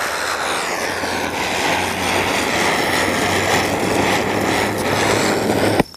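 Cock Brand ground spinner (chakri) firework whirling fast on the ground, a steady rushing hiss of sparks with a faint whistle that dips slightly in pitch about a second in. It cuts off suddenly just before the end.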